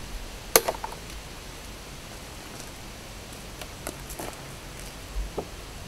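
Hive tool prying at the wooden lid of a package of bees: a sharp click about half a second in, then a few lighter wooden clicks and taps later on, over a steady outdoor hiss.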